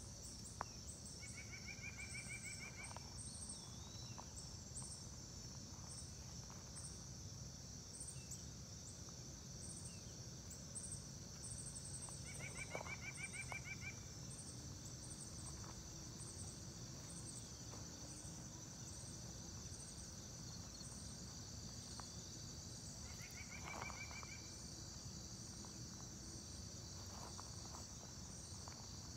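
Outdoor insect chorus: a steady high-pitched buzz with a rhythmic pulsing chirp above it, about two pulses a second. A bird gives a short trill three times, and a low rumble runs underneath.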